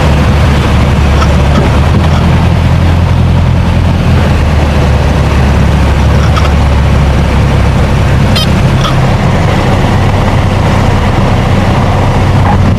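Cabin sound of a Piper Warrior's four-cylinder piston engine and propeller throttled back for landing, a steady low drone with air rushing past the airframe.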